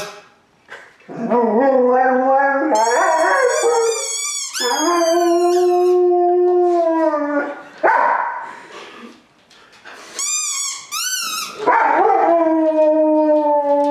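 A rottweiler–boxer mix dog howling: a series of long drawn-out howls, one held steady for about three seconds in the middle and another falling slightly near the end, with higher wavering cries between.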